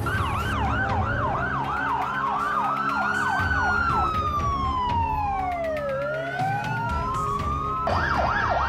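Emergency vehicle sirens, with an ambulance in the street. A fast yelping siren gives about three sweeps a second, then gives way to slow wails that rise and fall and overlap. The fast yelp starts again about eight seconds in.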